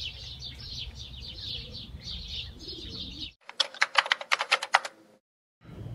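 Small birds chirping rapidly over a low outdoor rumble for about three seconds. After a sudden cut comes a quick run of about a dozen sharp clicks, like typing keys, then silence.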